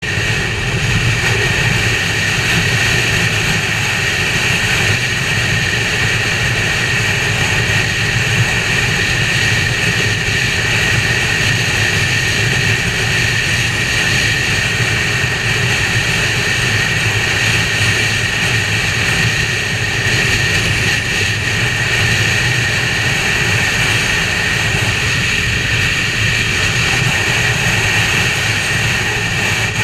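Motorcycle cruising at a steady speed: a constant engine drone under wind and road noise, with no change in pitch or level.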